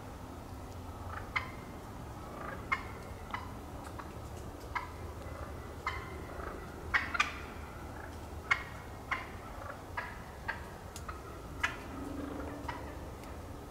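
Wild turkey hens calling to each other from the roost before fly-down: short, sharp calls, one or two at a time, every second or so.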